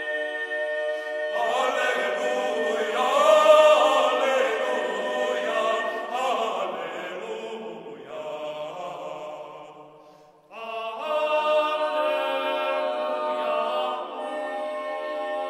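Mixed eight-voice a cappella ensemble of sopranos, altos, tenors and basses singing sustained chords live in a cathedral. The sound swells to its loudest a few seconds in, fades away to a brief near-silence about ten seconds in, and a new full chord enters right after.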